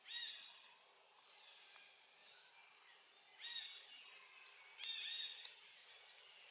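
A bird calling three times in the background: short, high calls of a few stacked notes, one at the start and two more past the middle, over a faint steady outdoor hiss.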